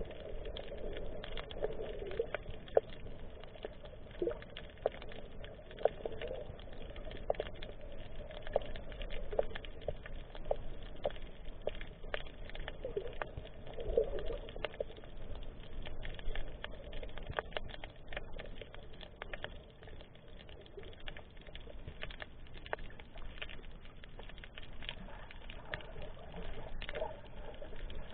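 Underwater ambience heard through a submerged camera: a continuous crackle of small irregular clicks over a low, muffled burbling that swells every second or two.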